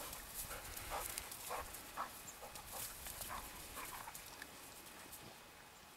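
Eight-week-old puppies playing in snow: a string of faint short yips and scuffles, about two a second, dying away toward the end.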